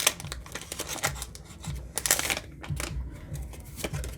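Foil booster pack wrapper crinkling and rustling as it is torn open, a run of short crackles with a denser rustle about two seconds in.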